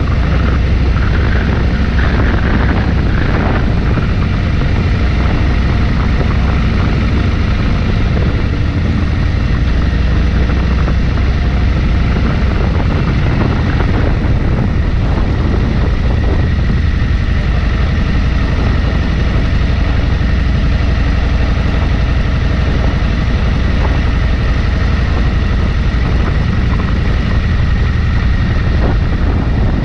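Bagger motorcycle cruising at a steady speed: a continuous engine rumble mixed with heavy wind buffeting on a microphone mounted low by the front wheel.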